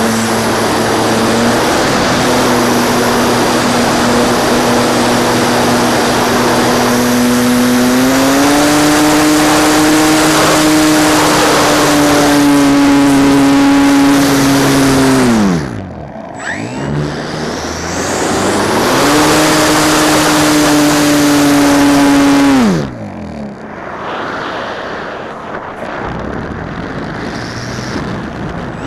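NitroPlanes 3D YAK-54 model aerobatic plane's motor and propeller droning at a steady pitch. The pitch rises slightly about eight seconds in. The throttle is cut about halfway through, opened up again a few seconds later, and cut again near the end. In the quieter stretches wind noise on the microphone is heard.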